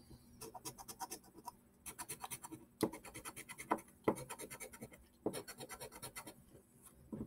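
Scratch-off lottery ticket being scratched: rapid, quiet back-and-forth strokes, about eight a second, in several short runs with brief pauses.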